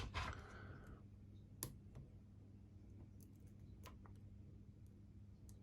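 A lock pick and tension wrench working the pins inside a four-pin Master Lock Magnum padlock clamped in a vise. There is a brief scrape at the start, then a few faint, scattered clicks over a low steady hum.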